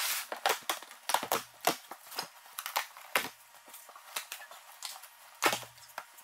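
A rapid, irregular run of sharp clicks and knocks, several a second, with a short low hum about a second in and again near the end.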